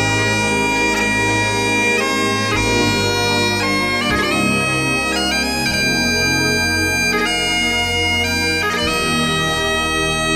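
Background music played on bagpipes: a melody of held notes that change every second or so over a sustained low drone.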